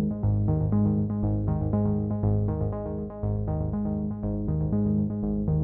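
Electronic music with a steady rhythm of short, repeating notes over a steady bass.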